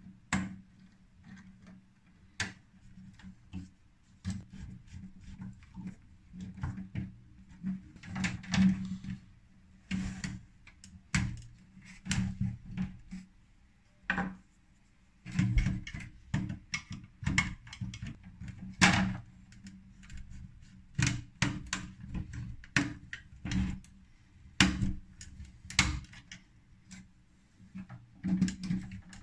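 Irregular clicks and light knocks of electrical wires being handled and pushed into the plastic screw terminals of a DIN-rail emergency-lighting remote-control module, over a low steady hum.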